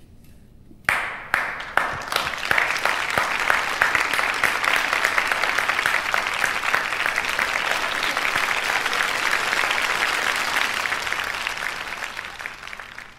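Audience applauding: a few scattered claps about a second in, quickly swelling into steady applause that fades away near the end.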